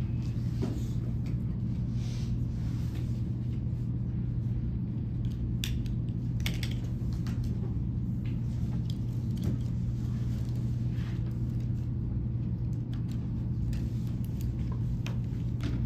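Room tone: a steady low hum with a few faint, scattered clicks and rustles.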